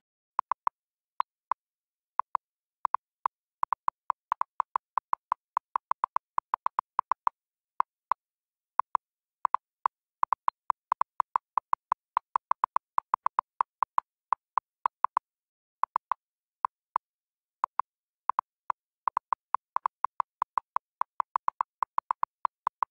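Typewriter-style text animation sound effect: quick runs of short, identically pitched blips, one per character, with brief pauses between runs.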